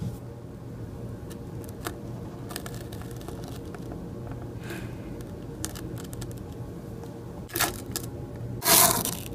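Handling noise from a plastic toy figurine being moved by hand over fabric: scattered small clicks and light scraping over a steady low hum. A louder rustle comes near the end.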